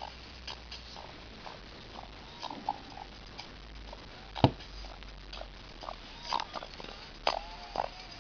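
Alcatel OneTouch Go Play phone's loudspeaker playing sound badly distorted: scattered short squeaky chirps and crackles, with a sharp click about four and a half seconds in. The owner takes this intermittent fault, which changes when the back of the phone is pressed, for a manufacturing defect.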